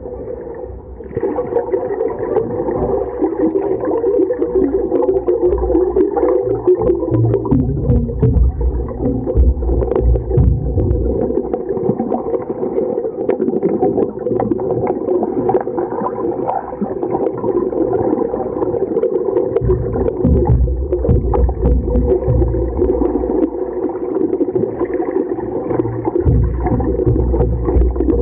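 Underwater sound picked up by a submerged camera: a continuous muffled rumble of water, with bubbling and crackling from the diver's bubbles and movements.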